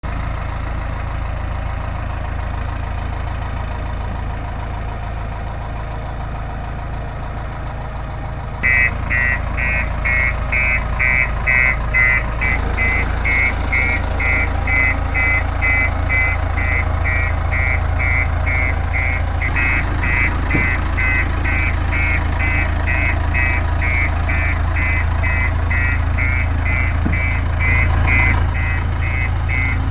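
Diesel engine of a JCB backhoe loader running steadily. About nine seconds in, a rapid electronic beeping alarm starts, about three beeps a second, and keeps going.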